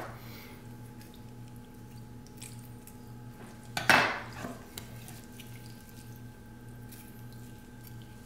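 Steady low hum, broken about four seconds in by one sharp clack of a metal kitchen utensil knocking against a wooden cutting board.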